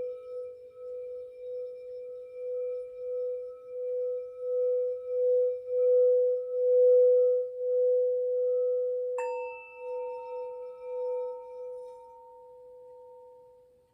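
A singing bowl rubbed around its rim, one steady ringing tone that swells and wavers in regular pulses, building to its loudest in the middle and then easing off. About nine seconds in, a higher, bell-like tone is struck and rings on as both fade away.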